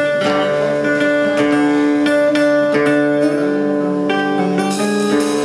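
Live instrumental passage on a plucked, bowl-backed Greek lute, its melody notes picked and left ringing over steady low held notes.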